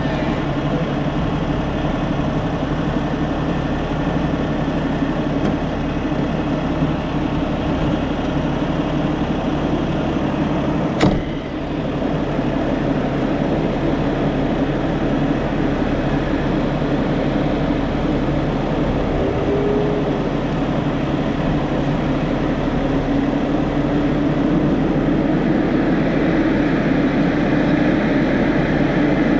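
Kenworth semi-truck's diesel engine running steadily, with a cab door shutting once about eleven seconds in.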